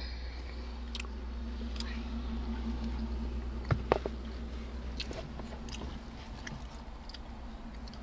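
Quiet eating and handling noises during a snack: scattered light clicks and, about four seconds in, two sharp knocks close together, over a low steady hum.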